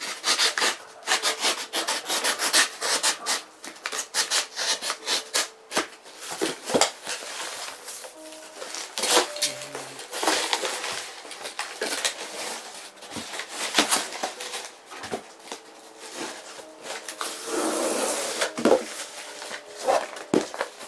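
Box cutter slicing through corrugated cardboard in a run of short scraping strokes, with the cardboard flaps knocked and bent as they are worked. Near the end comes a longer rustling stretch as loose panels are handled.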